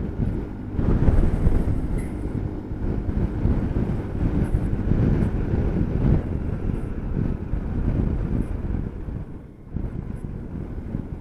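Strong wind blowing across the microphone of a rider on a moving scooter: a rough low rumble that rises and falls in gusts, over the scooter's riding noise.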